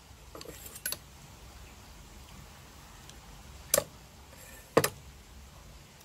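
Tableware clicking and knocking on a table: a few light clicks, then two sharp clinks about a second apart.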